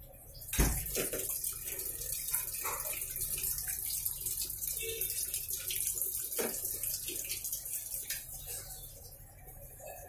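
Water pouring into the tub of a Videocon top-loading washing machine as it fills, a steady hiss with spattering. A thump about half a second in as the lid is lifted, after which the water is heard plainly; it grows muffled near the end as the lid comes down.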